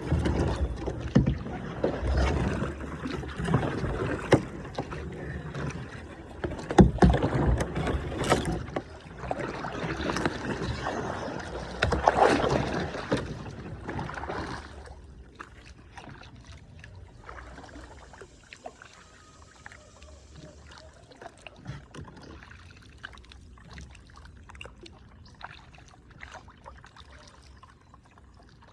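Kayak paddling on a river: paddle splashes and water rushing against the hull, with a few sharp knocks. About halfway through it dies down to quieter lapping with occasional small clicks.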